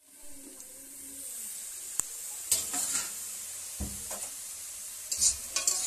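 Greens sizzling with a steady hiss in a steel wok once its metal lid comes off, with a sharp click, metal clatter and a thump of lid and pan, then a spatula scraping the wok near the end.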